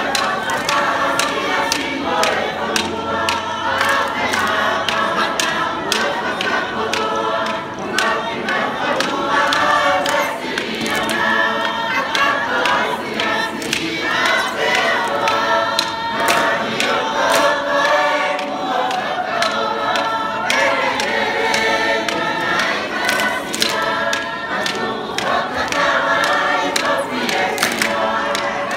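A large mixed choir of men and women singing a Tongan lakalaka in parts, with many short sharp claps through the singing.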